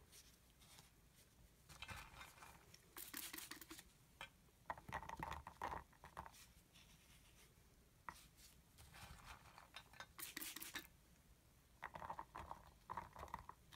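Faint, irregular patter and light clicks of small melt-and-pour soap cubes dropped by hand into a soap loaf mold, coming in scattered bursts.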